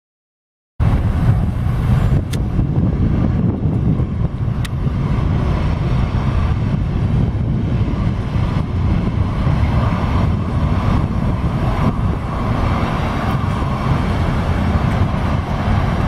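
Steady outdoor airport ambience: a dense low rumble with wind buffeting the microphone. It starts abruptly about a second in.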